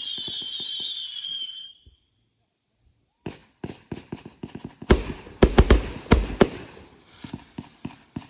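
Consumer fireworks going off. A wavering high-pitched whistle with crackling stops about two seconds in, followed by a short pause. Then a rapid, uneven run of sharp cracks and bangs sets in and grows denser and louder.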